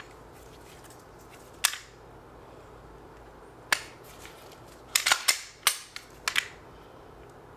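Sharp metallic clicks and snaps from a Glock 45 Gen 5 9mm pistol being worked by hand for takedown, its slide and takedown lever clicking: two single clicks a couple of seconds apart, then a quick run of several clicks near the end.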